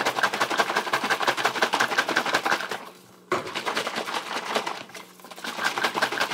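Puppy milk replacer formula sloshing and knocking inside a lidded plastic container shaken hard by hand to mix it: a rapid run of knocks, broken by two short pauses about three seconds in and about five seconds in.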